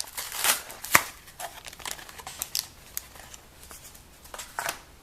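Plastic packaging and trading cards being handled: intermittent crinkling and rustling with scattered light clicks, a few louder crinkles standing out.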